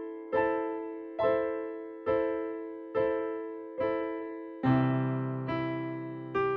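Background music on a keyboard: slow, evenly spaced single notes, each struck and fading away, about one a second, with a deeper bass note joining about two-thirds of the way through.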